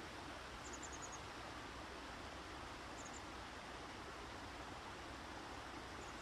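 Steady, faint outdoor background hiss, with a few faint, very high bird chirps: a quick run of about six notes about a second in, three more about three seconds in, and another couple near the end.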